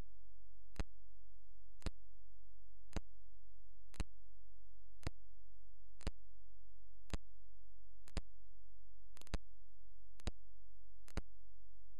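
Regular sharp ticking, about one tick a second with a couple of ticks doubled, over a steady low electrical hum.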